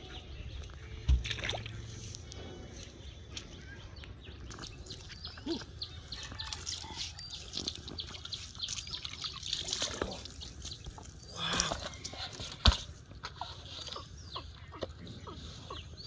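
Water splashing and sloshing as a fish caught on a hand line thrashes at the surface and is hauled to the bank, with scattered clicks and two sharp thumps.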